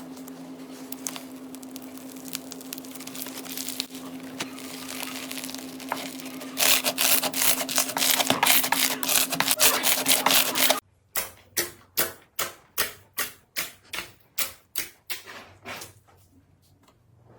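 Slime being squeezed and pressed by hand: soft squishing and rubbing at first, then a few seconds of dense, loud crackling, then a regular run of about a dozen sharp clicking pops, about two and a half a second, each fading quickly.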